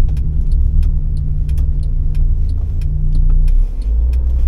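Car driving, heard from inside the cabin: a steady low engine and road rumble with light clicks and rattles scattered through it. The engine note changes about three and a half seconds in.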